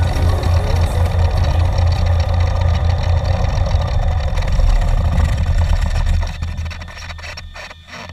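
Small airplane's piston engine idling with a steady low rumble, heard inside the cockpit, then winding down and dying away about six seconds in as the red mixture knob is pulled for shutdown. A few sharp clicks follow near the end.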